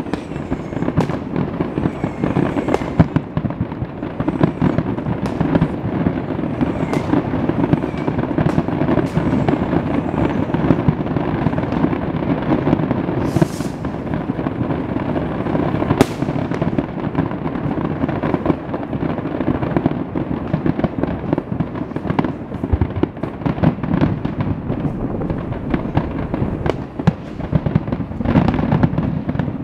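Large fireworks display: a dense, continuous barrage of shell bursts and crackling with no let-up, a few louder single bangs standing out about halfway through and some short whistles in the first few seconds.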